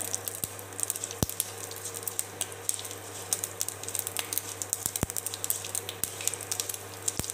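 Mustard seeds, dried red chillies and curry leaves sizzling in hot oil in a kadai, with scattered sharp pops as the mustard seeds splutter, a few louder than the rest. A silicone spatula stirs the tempering, and a low steady hum runs underneath.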